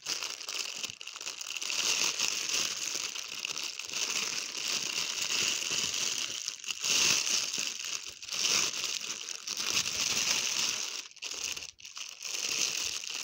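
Clear plastic bag crinkling continuously as hands handle and pull it open, with a couple of brief pauses near the end.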